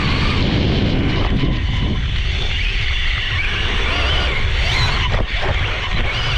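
Brushless electric motor and drivetrain whine of a Losi Promoto-MX RC dirt bike, rising and falling with the throttle as it is driven over dirt, heard from a camera mounted on the bike. A heavy low rumble runs underneath, with a short drop about five seconds in.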